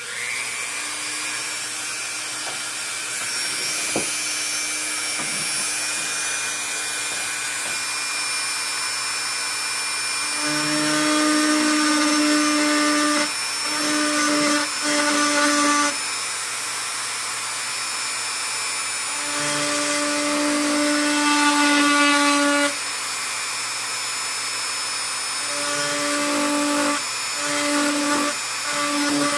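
Small handheld rotary tool running steadily while detailing a design, its whine changing in stretches about ten, twenty and twenty-six seconds in as the bit works the surface.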